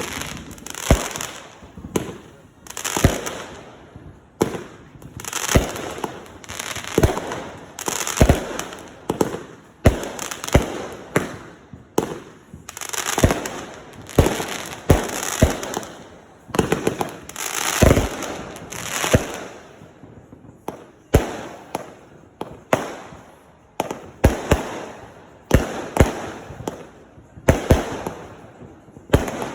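Consumer aerial fireworks firing in quick succession: sharp bangs about once a second, each followed by a crackling hiss that fades.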